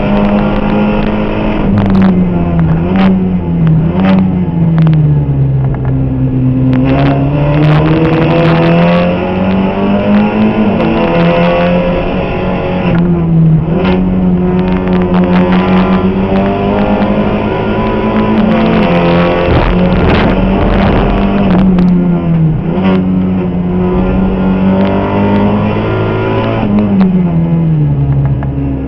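Seat Supercopa race car engine heard from inside the cockpit under racing load, its pitch climbing and dropping again and again as it accelerates, changes gear and brakes for corners. Short sharp knocks come through now and then.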